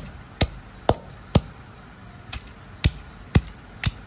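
Neem-wood pestle pounding chopped chibbar (kachri) in a clay kunda mortar: a steady run of thuds, about two a second, with a brief lighter stroke in the middle as the fruit is crushed into chutney.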